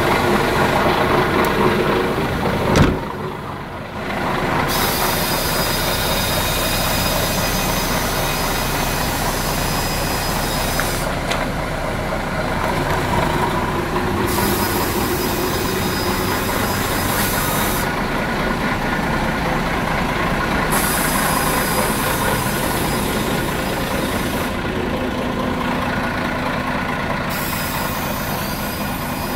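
DAF XF 95.430 truck's six-cylinder diesel engine idling steadily. A single sharp knock about three seconds in, after which the sound is briefly lower.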